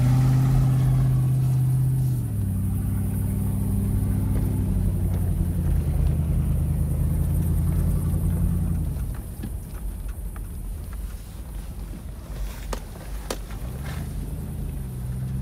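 Toyota Land Cruiser 100's V8 engine heard from inside the cabin while driving a dirt track: a steady engine note that drops in pitch about two seconds in, falls away quieter about nine seconds in, and rises again near the end, with a couple of sharp clicks shortly before that.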